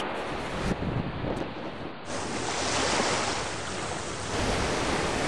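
Ocean surf washing onto a beach, a steady rush that swells twice, with wind buffeting the microphone.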